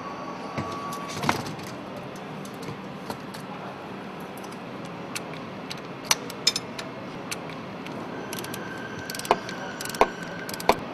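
Sharp metallic clicks and clinks, about half a dozen scattered through, over a steady background noise: sheet-metal exhaust cladding and open-end wrenches knocking against the steel parts of a MaK M 32 C diesel engine while the cladding is unclipped and a bracket bolt is loosened.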